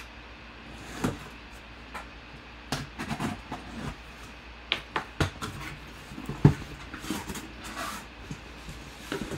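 A taped cardboard box being handled and opened by hand: irregular taps, scrapes and cardboard rustling as the flaps are pulled open, with one sharp knock about six and a half seconds in.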